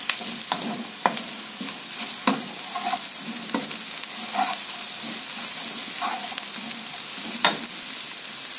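Sliced shallots, garlic, chili and onion sizzling in hot oil in a nonstick wok, with a steady hiss. A metal spatula scrapes and knocks against the pan at irregular moments as they are stir-fried, the sharpest knock near the end.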